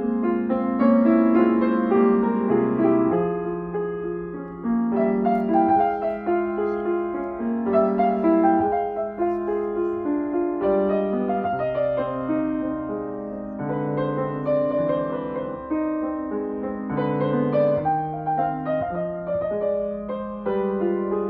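Steinway & Sons grand piano being played: a melody over held chords and a moving bass line.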